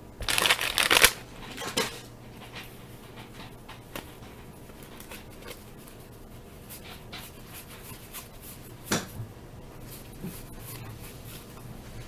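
Vintage wax-pack baseball cards being handled: a brief crinkle of wax paper in the first second, then soft, repeated sliding of cardboard cards being flipped through one by one, with one sharper card snap or tap near the end.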